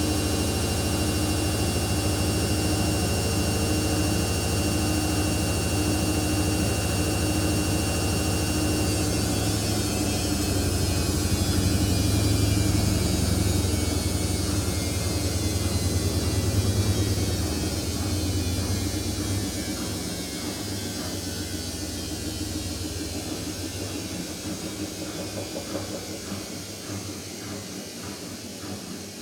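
Samsung P1271 front-loading washing machine in its final spin, the drum and motor running with a steady hum and rumble. About two-thirds of the way in, the sound fades steadily as the drum winds down.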